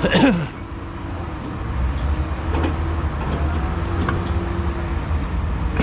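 Heavy recovery truck running its hydraulic underlift to raise the lorry: a steady low engine rumble with a level hum, the rumble growing about a second and a half in, and a few faint clicks.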